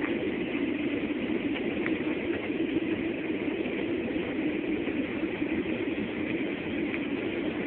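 Steady cabin noise of an airliner in flight on approach: engine and airflow noise heard from inside the passenger cabin, an even rush with a low hum and no change in level.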